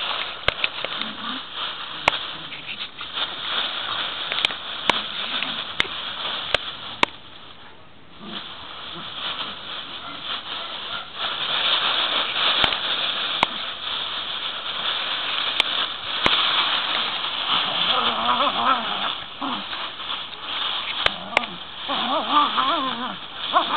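Dry fallen leaves rustling and crunching as two small dogs play and scuffle in them, with scattered sharp crackles.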